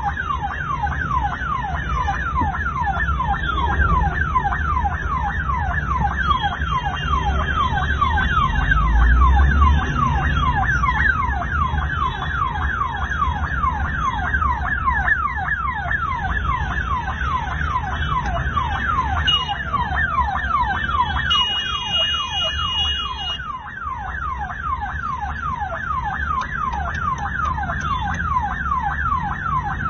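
Ambulance's electronic siren sounding in rapid, repeated falling sweeps, about three a second, over a steady low rumble of engine and traffic, heard from inside a vehicle.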